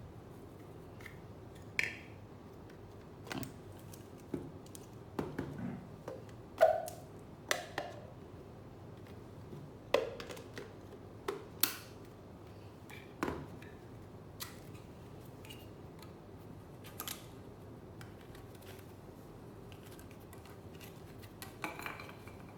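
Scattered clicks and light knocks of hard parts being handled, about a dozen spread irregularly, the loudest a little after six seconds and at ten seconds. It is most likely the handheld cordless vacuum and its attachments being handled with the motor off.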